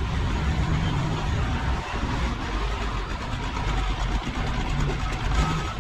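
Forklift engine running steadily as the forklift drives up close.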